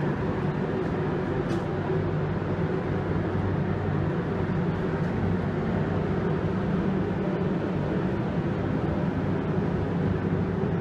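Steady mechanical hum, with a constant low drone under a rush of air, unchanging throughout.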